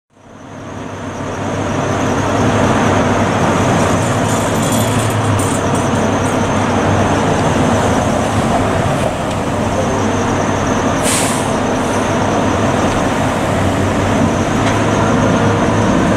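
Diesel engines of a fire engine and a ladder truck running steadily, fading in over the first couple of seconds as the trucks prepare to roll out. A short hiss of air brakes releasing about eleven seconds in.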